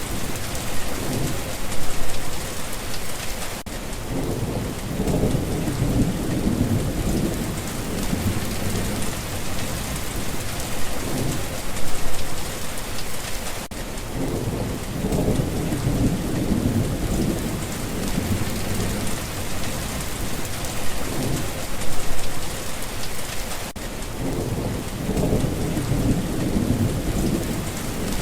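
Steady heavy rain hissing, with low rolling rumbles of thunder that swell and fade about every ten seconds in a repeating pattern.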